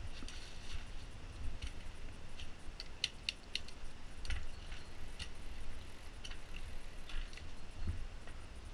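Downhill mountain bike rolling slowly, with scattered light clicks and rattles from the bike, including three sharp clicks in quick succession about three seconds in, over a low rumble.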